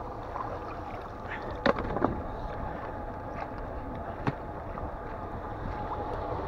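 Ice in a frozen, water-filled puddle being broken up and its chunks shifted about in the water: a few sharp knocks and cracks, two close together just under two seconds in and one after about four seconds. Under them runs a steady low rumble from the idling Lada Niva.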